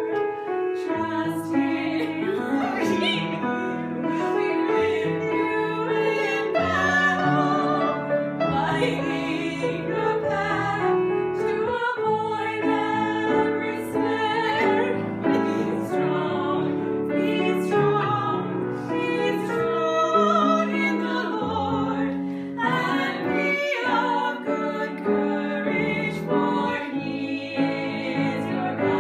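Three women singing a song together from lyric sheets, their voices in unison or loose harmony over an instrumental accompaniment that holds sustained notes underneath.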